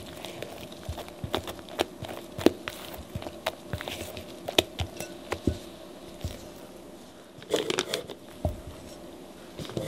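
Silicone spatula scraping and knocking against a glass mixing bowl while folding thick cake batter, giving irregular sharp clicks and taps over a faint steady hum. Near the end a short crinkling of a plastic piping bag as batter is spooned into it.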